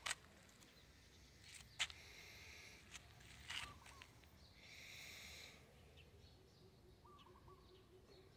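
Near silence: quiet rural ambience with a few faint sharp clicks, a brief hiss about five seconds in, and a faint short call near the end.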